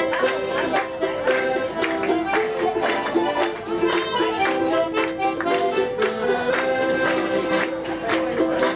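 Live accordion music: a tune of held chords and melody over a steady beat.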